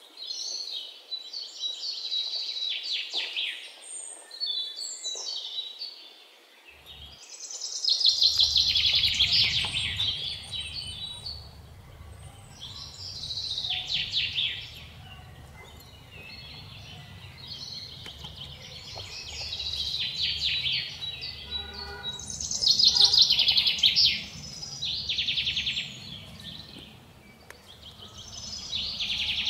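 Birds chirping and trilling in repeated bursts every two to three seconds, over a low steady rumble that comes in about eight seconds in.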